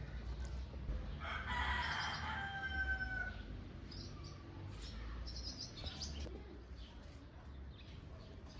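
A rooster crows once, a drawn-out call of about two seconds that ends on a held note, followed by short high chirps of small birds.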